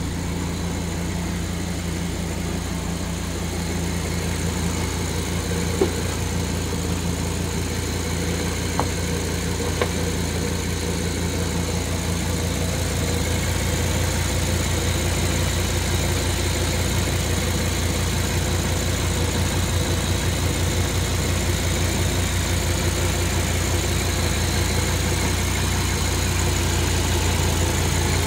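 Audi R8's 5.2-litre V10 idling steadily, heard close up over the open engine bay. A few faint clicks sound in the first ten seconds.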